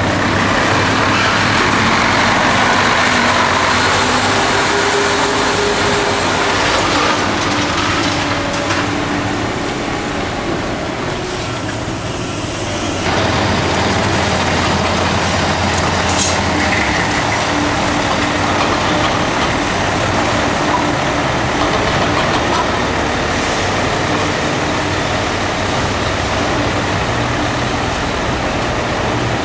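Mercedes-Benz Actros tipper trucks' diesel engines running as the trucks manoeuvre, a steady low engine drone under broad noise. The sound changes abruptly about halfway through.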